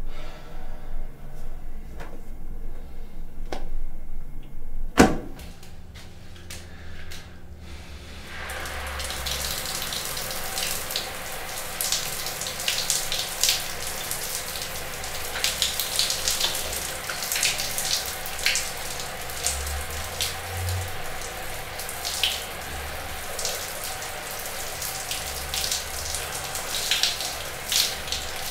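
A sharp knock about five seconds in. From about eight seconds on, a shower runs steadily, its spray splattering on a man's body and the tiled floor with frequent sharp splashes.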